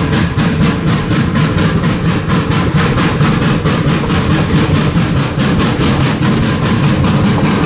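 4-4-0 replica steam locomotive No. 17 'York' working under steam, its exhaust chuffing in a steady, even beat of about four to five chuffs a second over a low running rumble.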